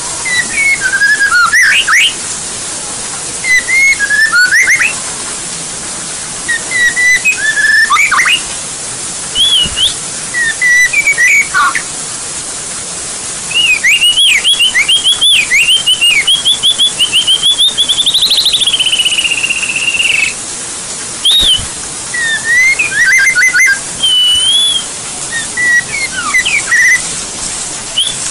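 White-rumped shama singing in full voice: short, loud whistled phrases with pauses between them, and in the middle a long rapid trill of about six seconds that climbs in pitch and then falls away. A steady hiss lies under the song.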